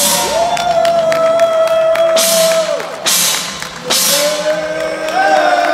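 Hand-held gong struck with a mallet four times, each crash ringing on, over background music with a sliding, sung-sounding melody.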